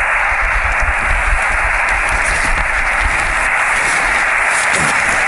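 Steady static hiss from a portable QRP HF ham radio receiver with no station on the frequency, held to a narrow, tinny voice-band range.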